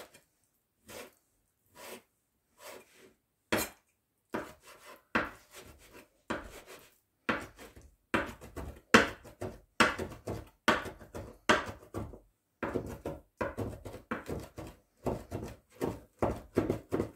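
Large kitchen knife chopping oil-packed sun-dried tomatoes on a cutting board: sharp knocks of the blade on the board, slow and separate at first, quickening after a few seconds into steady chopping at about two to three strokes a second.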